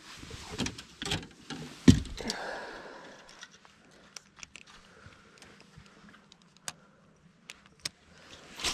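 Handling noise on a small boat: clothing rustling and knocks on the deck, with one loud thump about two seconds in. After that it goes quieter, with scattered light clicks as the spinning rod and reel are handled.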